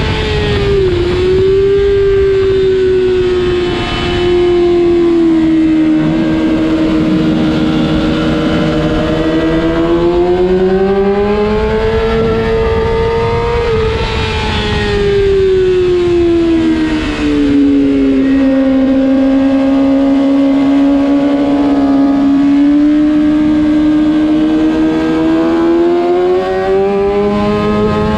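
Kawasaki ZX-6R's inline-four engine running at high revs under way. Its pitch wanders with the throttle: it climbs from about ten to fourteen seconds in, falls away over the next few seconds, then slowly climbs again toward the end.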